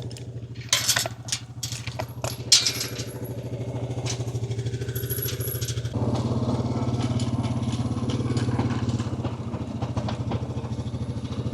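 ATV engine running steadily under way while towing a wood chipper, with several sharp knocks and rattles in the first few seconds. It grows fuller and louder about six seconds in.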